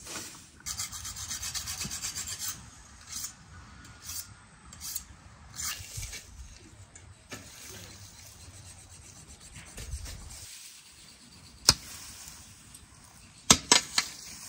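Wooden hay rake dragged through freshly cut grass: repeated rasping swishes and scrapes. A few sharp clicks come near the end and are the loudest sounds.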